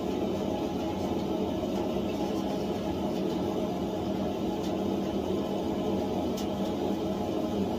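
Steady roar of a gas forge burner, with a few faint sharp crackles as the red-hot punch tip is dipped into the quench oil.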